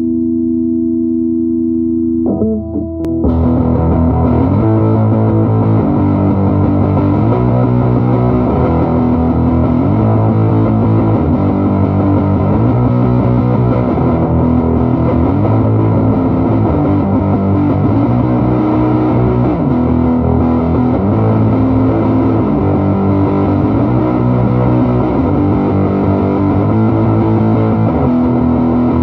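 Electric guitar with heavy distortion played through an amplifier. A held chord rings for the first couple of seconds, then about three seconds in a riff starts and repeats over and over.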